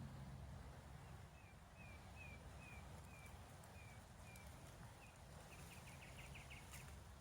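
A small bird calling faintly: a series of about ten short, slightly falling whistled notes at an even pace, followed by a quick rattling run of notes.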